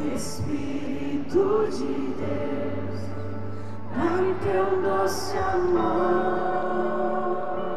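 Live gospel worship music played by a band over a stadium sound system, with a lead voice held on long notes and many voices singing along. A few short hissing sounds cut through it.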